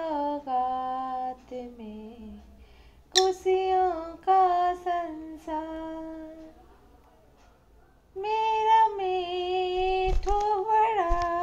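A woman singing a melody unaccompanied, in long held notes, with a pause of about a second and a half a little past halfway. A couple of low bumps come near the end.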